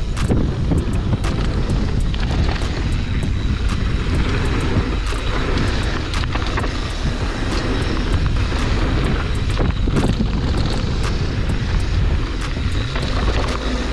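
Mountain bike descending a dirt trail at speed: a steady rush of wind buffeting the action camera's microphone with the rumble of tyres on dirt, and many sharp clicks and knocks from the bike rattling over the ground.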